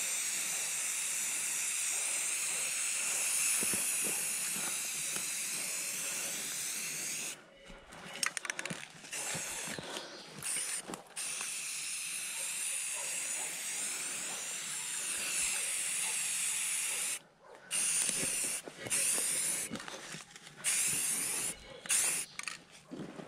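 Aerosol spray paint can hissing as paint is sprayed onto a tree trunk. There are two long continuous sprays, one lasting about seven seconds at the start and one of about five seconds in the middle, with shorter spurts between them and toward the end.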